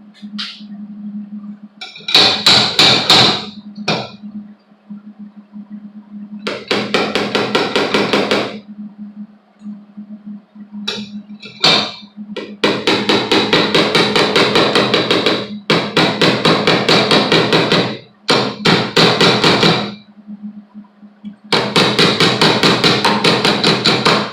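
MIG welder arcing in repeated crackling bursts of one to three seconds, welding the slide hammer's tip onto the dent. A few single knocks fall between the bursts, and a steady low hum runs underneath.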